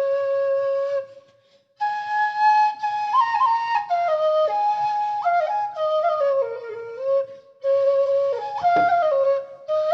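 Bansuri bamboo flute playing a solo melody in phrases. It opens on a held note and has short pauses at about a second and a half in and again near seven and a half seconds.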